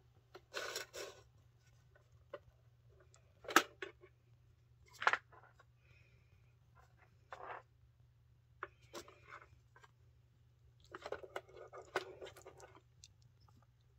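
A cat pawing at a toy coin bank box: scattered sharp taps and clicks of paws on the box lid, the loudest two a few seconds in, with a run of scratchy tapping near the end.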